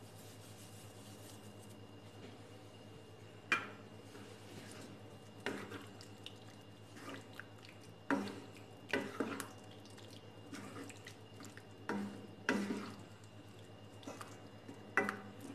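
A spatula knocking and scraping against a metal kadai while thick gravy is stirred: about eight short, spaced-out knocks over a steady low hum.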